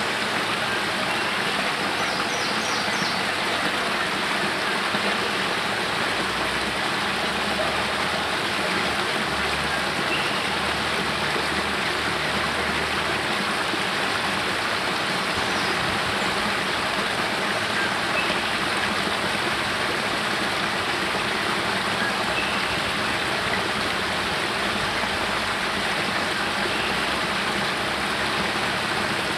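Spring water pouring from a cave mouth down a small rocky cascade into a pool: a steady, even rush of falling water.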